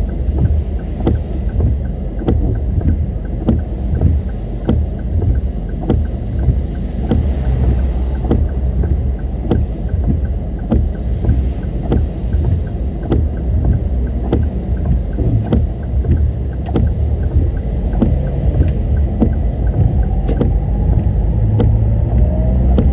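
A car driving in typhoon weather: a steady, loud low rumble of road and wind noise, with short sharp ticks scattered all through it. Near the end a wavering engine tone rises over the rumble.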